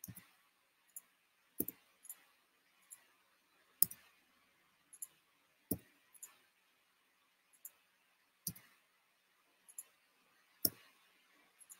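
Faint computer mouse clicks at an irregular pace, about one a second, some with a duller knock, as shapes are selected and filled in a drawing program.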